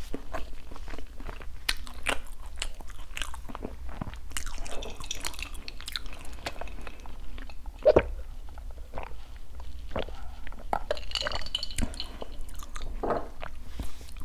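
Close-miked mouth sounds of chewing soft, sticky glutinous rice cake coated in shredded coconut: a run of wet clicks and smacks. About eight seconds in comes a louder sip through a straw.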